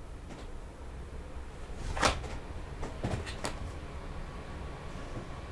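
Tarot cards being handled: a sharp click about two seconds in, then a few lighter taps and clicks a second later, over a low steady hum.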